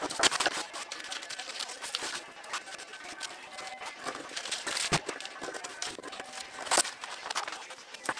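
Scissors snipping through brown kraft paper, with the paper rustling and crinkling as it is handled, and a few sharp knocks from tools set down on the board.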